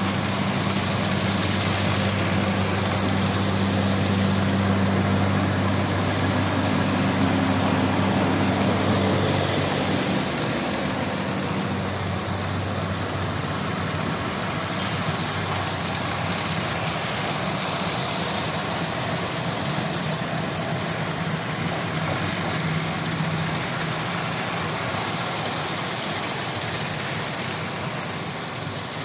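Heavy articulated trucks drive slowly past one after another on wet tarmac. A DAF tractor unit's diesel engine drones steadily close by for about the first ten seconds, then fades into a steady wash of engine and tyre noise as more trucks roll by.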